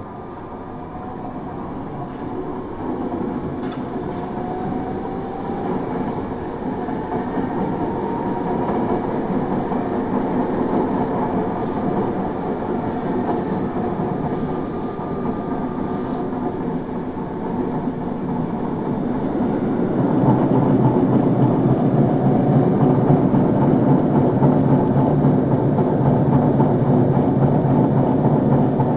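Tokyo Metro 01 series subway car gathering speed: faint rising motor tones in the first several seconds, then running noise that grows louder from about twenty seconds in. The car's abnormal running noise, mostly from flat spots on the wheels, drowns out all but a trace of the traction motors' brush sound.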